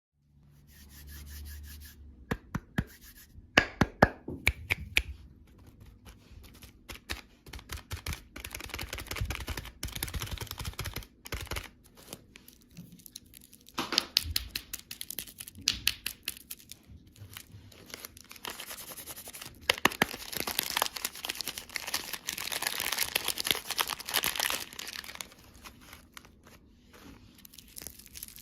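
Candy packaging being handled and torn open: plastic wrappers crinkling and tearing, with many sharp clicks and crackles and a longer stretch of continuous rustling about two-thirds of the way through.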